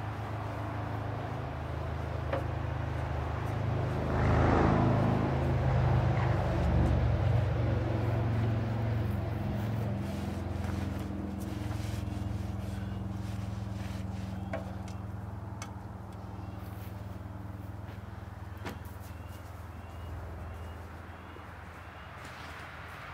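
Allis-Chalmers 410 garden tractor's engine idling steadily, swelling louder for a few seconds about four seconds in and then easing back down.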